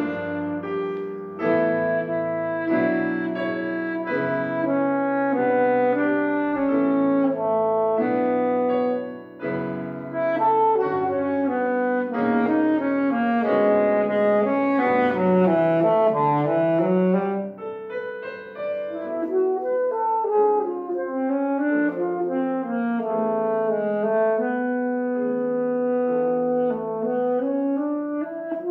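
Saxophone and piano playing a classical duet: the saxophone carries the melody over piano accompaniment, with a stretch of fast running notes in the middle.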